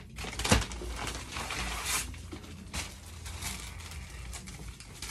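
Clear plastic bag crinkling and rustling as a T-shirt is pulled out of it and unfolded, with one sharp snap about half a second in.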